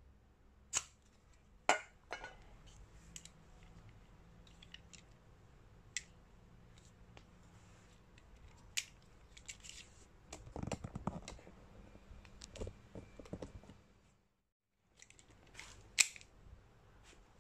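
Sharp metallic clicks and handling noise from a Wingun 708 CO2 revolver being worked in the hand. Scattered single clicks come through the first half. A stretch of rubbing and handling follows, then the sound cuts out for under a second, and two more sharp clicks come near the end, the second the loudest of all.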